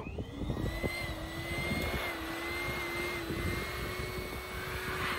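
Small electric balloon pump starting up and running steadily, its motor whining at a constant pitch as it blows air into a latex balloon.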